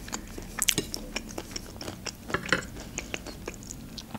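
Close-up chewing of a mouthful of Olivier salad, a run of soft, irregular wet mouth clicks and smacks.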